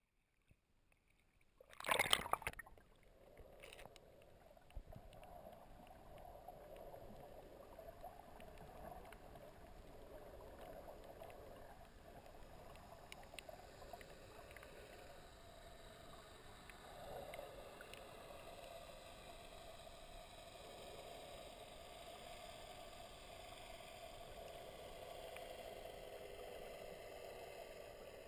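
A sharp splash about two seconds in as the camera goes under the water, then the steady muffled hiss and rumble of the sea heard underwater through an action camera's waterproof housing, with scattered faint ticks.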